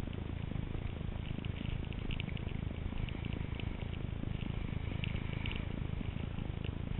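Steady low rumble of wind buffeting a helmet-mounted GoPro camera in its housing, with faint scattered crackles over it.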